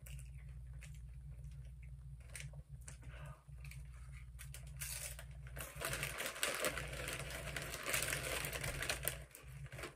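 Tortilla chips crunching faintly as they are chewed, then the foil Doritos bag crinkling loudly for about three seconds from around the middle as a hand rummages in it for more chips.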